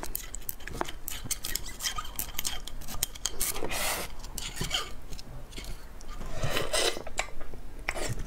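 Close-miked wet mouth and handling sounds of eating braised beef bone marrow from the bone: many short sticky clicks and smacks, with longer wet sucking sounds about three and a half seconds in and again about six and a half seconds in.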